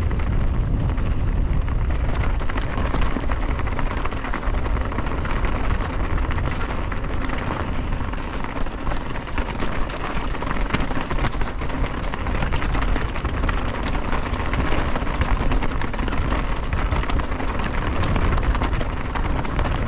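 Mountain bike riding down rocky singletrack: tyres rumbling and crunching over rock and gravel, with frequent rattling knocks from the bike and wind rumble on the microphone.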